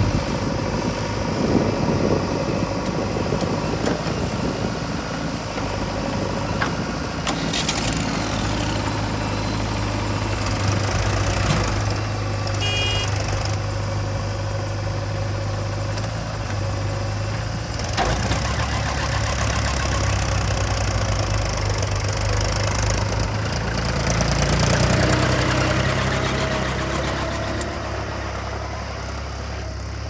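Diesel engines of a JCB 3DX backhoe loader and a Mahindra 275 DI tractor running steadily while soil is loaded into the tractor's trolley. The engine note shifts lower about eighteen seconds in, as the loaded tractor and trolley move off.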